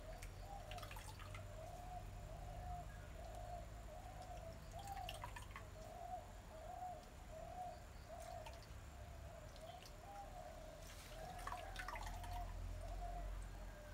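A bird repeats one short low note, about one and a half times a second, throughout. Under it is faint dripping and trickling as grated coconut is squeezed by hand and the coconut milk runs into a clay bowl, most audible a little before the end.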